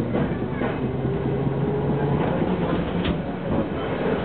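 Tram running slowly on street rails, heard from inside: a steady rumble with a low motor hum, and a few clicks from the wheels over the track, the sharpest about three seconds in.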